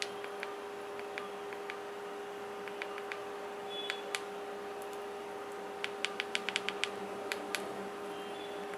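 Keypad buttons of a Karbonn KPhone9 feature phone being pressed: scattered single clicks, then a quick run of about eight clicks a little past the middle, over a steady hum.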